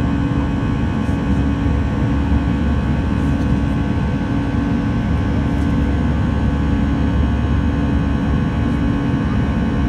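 Steady drone of a jet airliner's turbofan engines and rushing air heard inside the cabin during the climb after takeoff, with several steady humming tones and no change in level.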